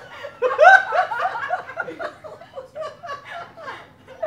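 Laughter: a quick run of high-pitched ha-ha pulses about half a second in, trailing off into scattered chuckles.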